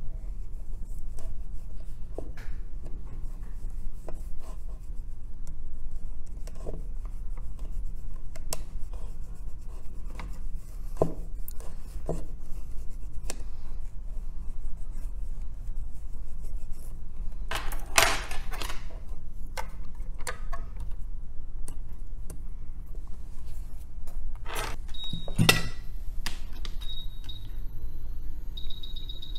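Small scrapes, rubs and clicks of hand tools working on the pads of an iPhone 11 Pro Max logic board during cleaning for reballing, over a steady low hum. There are longer scrapes about eighteen seconds in and again near twenty-five seconds, after which a high steady tone sounds on and off.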